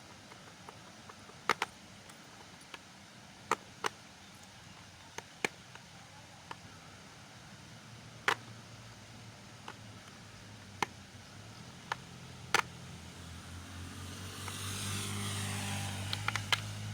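Scattered sharp clicks and knocks from handling the bicycle and bottle, then a car passing by in the last few seconds, its sound swelling and then fading.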